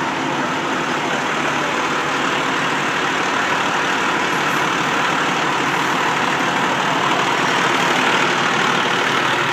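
Fire department heavy rescue truck's diesel engine running at idle, a steady even drone.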